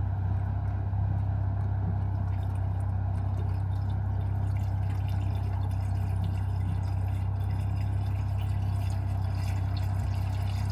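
1929 Ford Model A's four-cylinder flathead engine running steadily under load, a constant low drone as the car labours at crawling speed.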